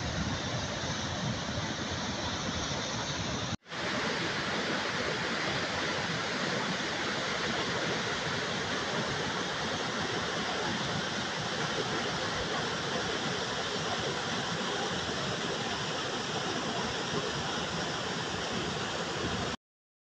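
Water of a tall cascading waterfall pouring over rock in a steady rush. The sound cuts out for an instant about three and a half seconds in and stops just before the end.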